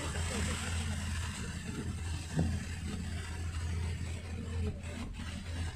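Inside a moving car's cabin in heavy rain: a steady low drone of engine and tyres under a constant hiss of rain and wet road. There is a short knock about two and a half seconds in.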